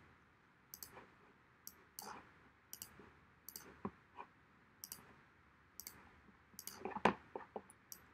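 Faint computer mouse clicks, about one a second, several coming as quick double clicks, with a few duller knocks in the middle and a louder cluster about a second before the end.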